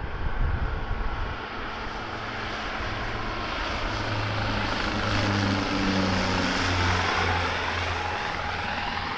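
Twin-engine turboprop search-and-rescue aircraft passing low overhead on its landing approach: a steady propeller drone grows louder, peaks about two-thirds of the way through, and a higher whine falls in pitch as it goes past.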